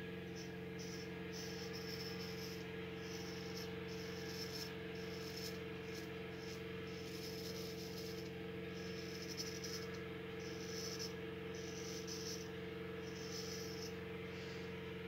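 Straight razor scraping through lather and stubble on the scalp in short, repeated rasping strokes, over a steady low hum.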